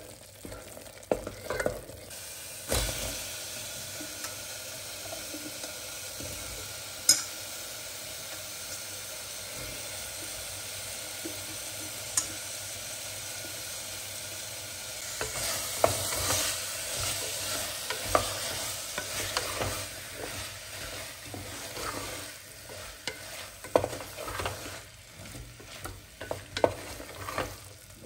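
Spiced masala frying and sizzling in a pressure cooker as a wooden spatula stirs and scrapes through it, with sharp knocks of the spatula against the pot now and then. The stirring gets busier and louder about halfway through.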